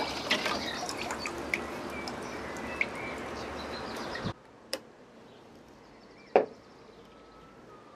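Elderflower lemonade poured through a strainer and funnel into a glass bottle: a steady splashing trickle with small clinks, which stops abruptly about four seconds in. After that come a couple of short light knocks, near the end a glass bottle touching the wooden table.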